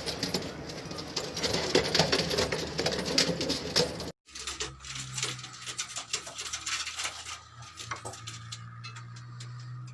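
Pigeons in a loft cooing, with busy scratching and pattering of feet and wings. About four seconds in the sound cuts off abruptly, and after it there is only a steady low hum with scattered light clicks.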